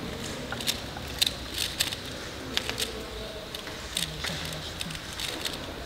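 Rubik's cube being turned by hand: irregular sharp plastic clicks, about a dozen over a few seconds, over a faint steady background.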